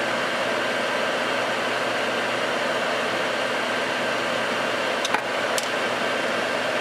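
Soldering fume extractor fan running with a steady rushing noise and a faint high whine. There are two short clicks about five seconds in.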